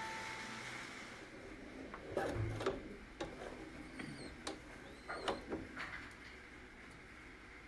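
Fine wire mesh being handled and smoothed by hand on a floor: light crinkling and scraping, with a scattering of short sharp clicks, mostly between about two and six seconds in.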